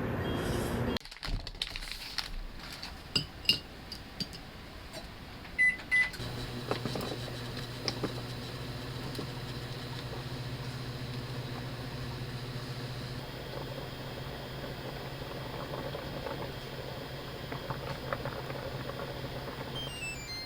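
Microwave oven: a few clicks and two short beeps from the keypad, then a steady hum as it runs, stopping near the end.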